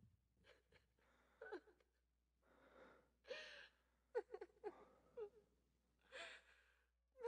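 Faint crying: breathy gasps and sighs broken by short, quavering whimpers.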